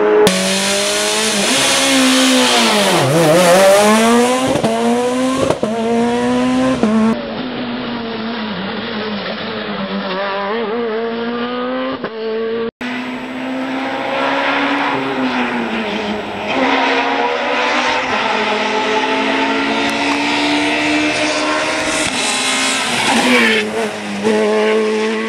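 Peugeot 207 S2000 rally car's naturally aspirated 2.0-litre straight-four driven hard on several passes: the engine pitch drops sharply as the car goes by about three seconds in, then climbs and falls again and again with upshifts and lifts off the throttle.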